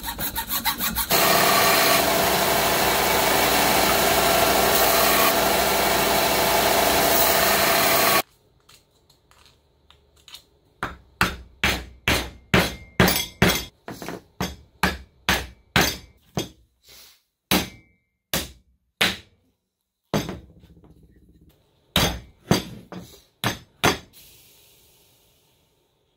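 Hand hacksaw cutting through PVC pipe held in a vise, a loud rasping that stops abruptly about eight seconds in. Then a hammer taps PVC pipe down into PVC tee fittings, sharp knocks about two a second, a pause, and a few more knocks near the end.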